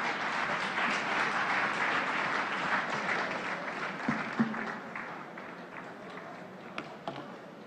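Audience applauding, strongest at first and dying away over the second half.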